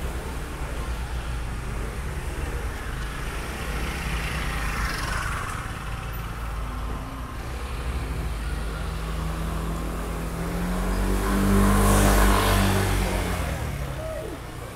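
A motor vehicle's engine runs close by, growing louder to a peak about twelve seconds in, then fading as it passes, over a steady low rumble of traffic.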